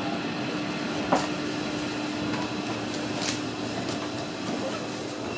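Steady hum of a stopped JR Kyushu 305 series electric train, with two faint clicks, about a second in and about three seconds in. The hum stops near the end.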